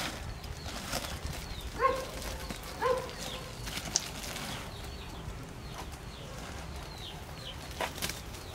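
Farm animals calling: two short pitched calls about a second apart, with small high chirps scattered throughout.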